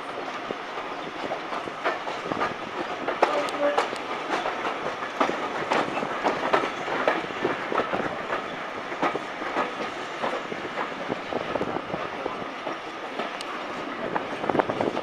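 Railway carriage wheels running over jointed track and pointwork, with an irregular run of clicks and clacks over rail joints and crossings above a steady rumble of running noise, heard through an open carriage window.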